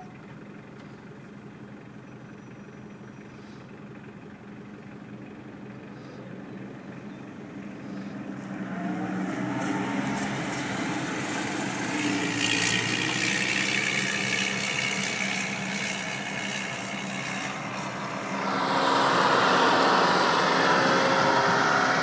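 Combine harvester running while harvesting grain: a steady engine and machinery hum that grows louder about eight seconds in and again near the end as the machine comes close.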